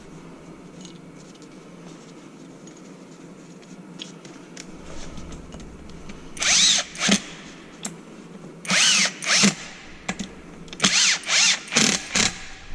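Cordless drill-driver run in about eight short trigger bursts from about six seconds in, each spinning up and winding down. Before that, only faint clicks of hands handling parts.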